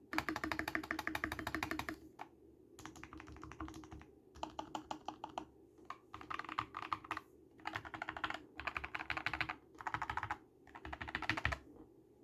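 Typing on an Epomaker SK64 mechanical keyboard with lubed Gateron Brown switches, modded with layers of tape and foam in the case: fast runs of key clicks in bursts of a second or two with short pauses between.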